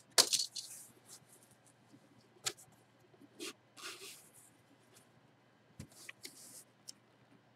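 A cardboard box being opened by hand: a sharp crack near the start as the taped, sealed lid comes apart, then scattered light scrapes and rustles of cardboard as the lid is lifted off.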